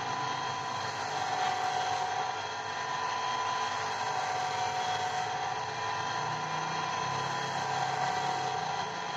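Electric lapidary wheel machine running steadily, an agate ring stone held against its spinning wheel: a steady motor whine over a constant hiss.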